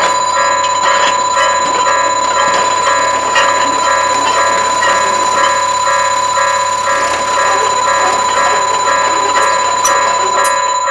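Japanese railroad crossing warning bells ringing the steady 'kan-kan' alarm, about two strikes a second, over a steady electronic tone.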